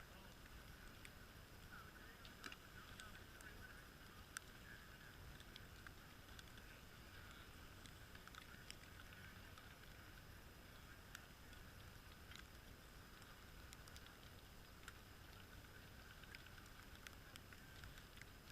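Near silence: faint outdoor ambience with a steady soft hiss and scattered small clicks.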